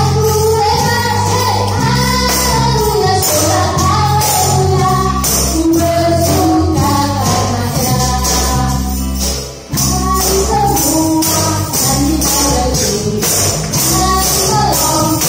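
Handheld tambourines with jingles struck and shaken in a steady rhythm along with a sung worship song and its accompaniment. The music drops out briefly a little past halfway, then carries on.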